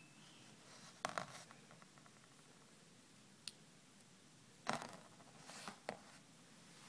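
Quiet handling of a champagne cork and its thin metal cap as they are separated by hand and set down: a few small clicks and scrapes, the sharpest about two-thirds of the way through.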